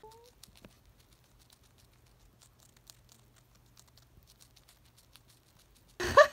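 Hamster nibbling a piece of carrot: faint, quick crunching clicks. About six seconds in, a short high-pitched cooing voice cuts in.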